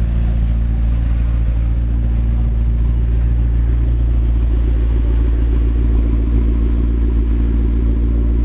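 McLaren MP4-12C's twin-turbo V8 idling with a steady, deep low rumble and no revs.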